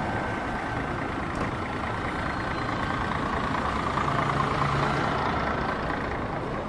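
Mercedes-Benz Conecto city bus engine running at close range over steady street traffic noise, the engine hum loudest about four seconds in as the bus pulls alongside.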